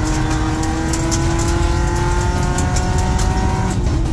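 Subaru Impreza GC8's flat-four engine accelerating, its note climbing slowly and then dropping away near the end as the throttle eases, heard from inside the cabin. Under it runs a heavy rumble of tyres on gravel with scattered sharp ticks from the loose surface.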